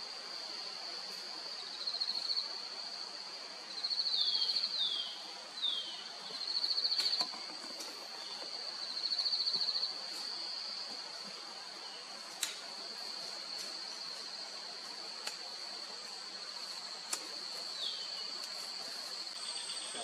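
Steady high-pitched insect drone, with louder pulsed insect trills joining in several times in the first half. A few short downward-sliding calls come around five seconds in and again near the end, along with a few sharp ticks.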